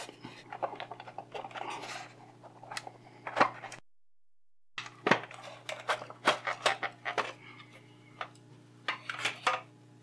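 Hard plastic housing of a Lidl SAS 7.2 A2 handheld vacuum cleaner being handled and prised apart: scattered clicks, knocks and rubbing of plastic on plastic. A short stretch of dead silence a little under halfway through where the recording is cut.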